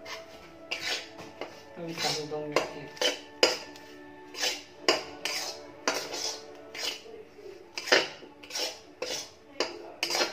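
Steel spatula scraping and stirring dry, crumbly gram flour (besan) in a steel kadhai as it roasts on a low flame, a rasping scrape about twice a second. Faint background music runs underneath.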